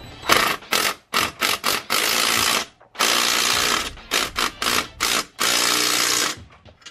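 Cordless DeWalt power driver spinning a socket to run down the nut on an exhaust V-band clamp. It fires in several short triggers, then in three or four longer runs of about a second each.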